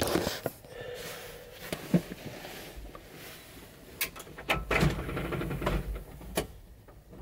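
Scattered knocks, clicks and rustling of someone moving about in a cramped capsule hotel sleeping pod, with bedding rustling and objects being handled.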